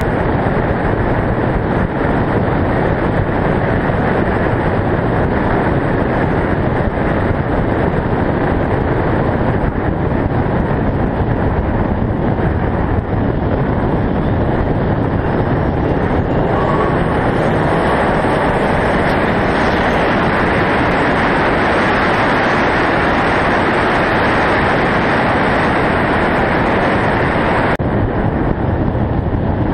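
Steady loud rush of wind and engine noise from a car driving hard at speed: the turbocharged LS2 V8 in a Toyota Celica, largely buried under wind buffeting on the microphone. The hiss thins out suddenly near the end.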